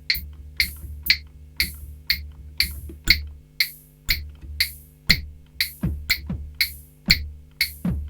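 Alesis Micron's built-in drum machine playing a rhythm pattern: sharp, bright hits about twice a second over a low steady bass tone, with falling-pitch drum hits joining in about five seconds in.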